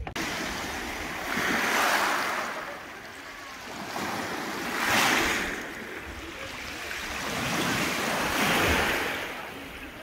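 Small sea waves washing up on a beach of shells, swelling three times, each surge about three seconds apart.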